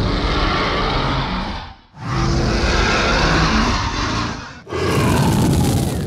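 Dragon roar sound effect: three long roars back to back, each about two to three seconds, the last one with more hiss.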